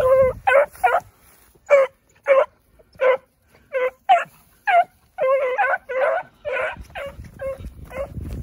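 Beagle puppy giving high-pitched yips and bawls while running a rabbit's scent trail: about fifteen short calls, roughly two a second, coming faster and drawn out longer after about five seconds.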